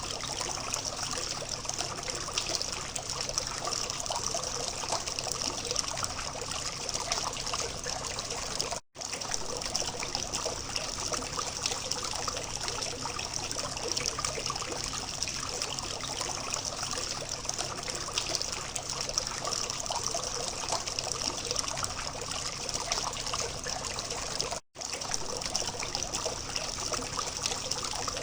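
Water from a small fountain trickling and splashing steadily. The sound drops out for a split second twice, about a third of the way in and near the end.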